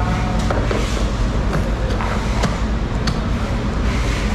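Steady low background rumble with scattered sharp clicks and knocks.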